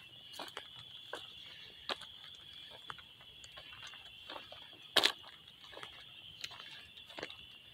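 Steady high-pitched insect chorus, with scattered light clicks and ticks over it; the sharpest click comes about five seconds in.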